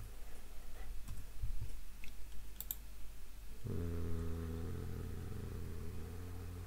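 Scattered computer keyboard and mouse clicks. A little past halfway a steady low drone with an even stack of overtones sets in and holds to the end.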